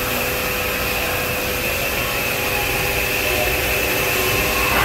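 Fanuc RoboDrill Alpha T10-C CNC vertical machining center running, a steady mechanical whine with a high tone and a lower tone over an even hum.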